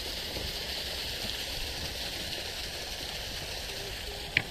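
Steady hiss of running water. A single brief, sharp click sounds near the end.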